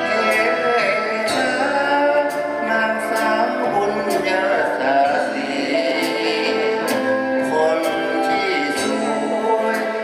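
Male singer singing a Thai song with a live big band, with sustained melody from the band and cymbal and drum strikes throughout.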